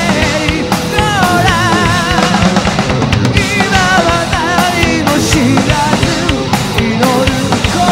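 Rock band playing live: drum kit keeping a steady beat under electric guitar and bass, with a lead melody that wavers in a wide vibrato over the top.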